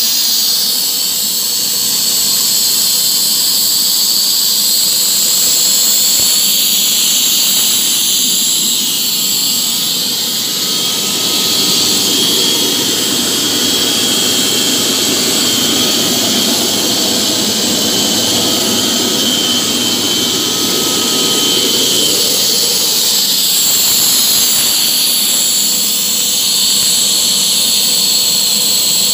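Brio screw air compressor running: a loud, steady high hiss and whine, with a lower rumble that swells for several seconds in the middle.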